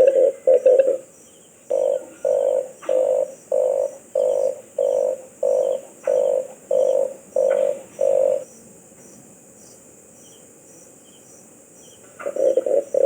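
Red collared dove cooing in a series of low, evenly spaced coos. A quick run at the start gives way to about ten slower coos, then a pause of a few seconds, and a fast run of coos starts again near the end.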